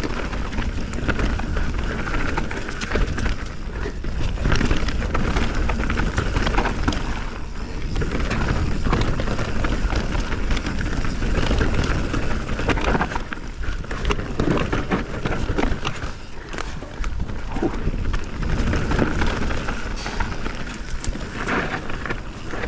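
Canyon Spectral 29 full-suspension mountain bike riding fast down a dirt singletrack: continuous tyre roar over dirt and leaves, with constant small clicks and knocks of the chain and frame rattling over roots and rocks, under heavy wind noise on the chest-mounted microphone.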